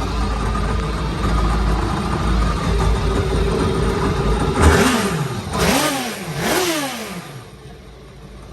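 Twin Yamaha jet drive engines of a jet boat running steadily, then blipped three times in quick succession, each rev rising and falling in pitch, before settling to a quieter idle near the end.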